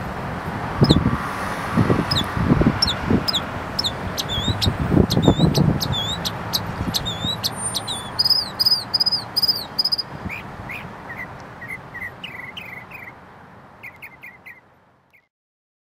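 Northern mockingbird singing: a short, sharp chirp phrase repeated several times, then a switch to a new phrase repeated in turn, with lower notes in the later part. Low rumbles sit underneath in the first half, and the whole fades out near the end.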